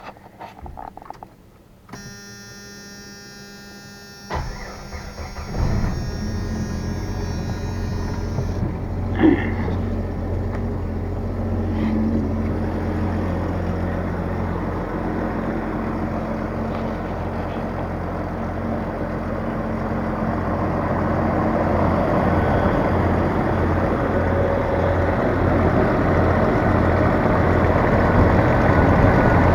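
1994 Jeep Wrangler YJ engine cranked by the starter and catching after about a second and a half, then idling steadily, getting a little louder near the end. Before the crank, a steady tone is heard for a couple of seconds. This is a test start on freshly installed heavy-gauge battery cables, fitted against a slow-crank problem.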